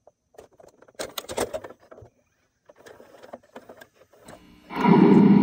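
Mechanical clicks and clunks from a video cassette player, then loud intro music starts near the end.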